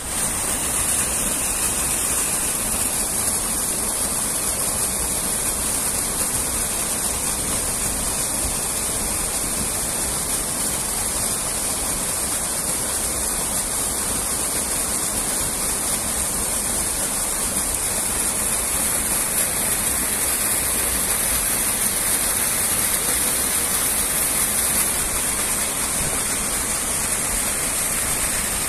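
Water pouring over the lip of a small concrete weir into a channel: a steady rushing with a bright hiss.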